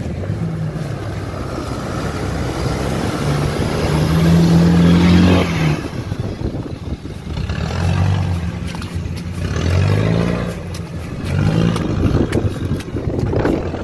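Land Rover Discovery 300Tdi 2.5-litre four-cylinder turbodiesel revving hard under load as the truck climbs through deep mud ruts. The revs are held high for a second or two about four seconds in, then rise and drop in short bursts three more times.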